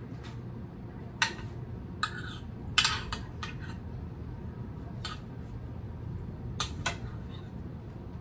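A spoon clinking and scraping against a skillet as ground-meat stuffing is scooped into bell peppers: a handful of sharp, irregularly spaced clinks, the loudest about three seconds in, over a low steady hum.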